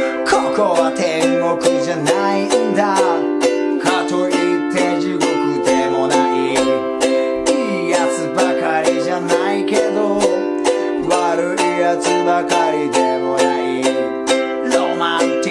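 A man singing in Japanese while strumming a ukulele in a steady rhythm, alternating C and G7 chords.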